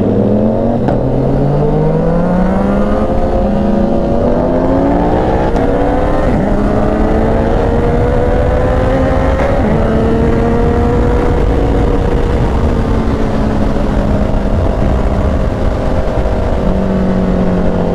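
Ducati Panigale V4's V4 engine through an aftermarket SBK performance exhaust, accelerating hard twice with the pitch climbing, then holding a steady cruise with the note drifting only slightly. The exhaust note is praised as beautiful, like a Yamaha R1.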